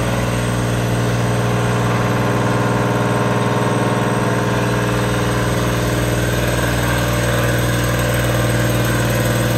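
CNC milling machine cutting S-NiCr35-3 chromium-nickel cast iron of 60 HRC: the spindle and cutter run with a steady low hum and machine noise that stays even throughout.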